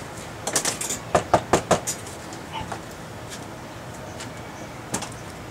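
Knuckles knocking on the door of a travel trailer: a quick run of knocks within the first two seconds, then a single click near the end.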